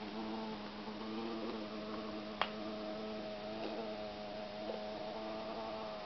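A steady buzzing hum with several overtones, and one sharp click about two and a half seconds in.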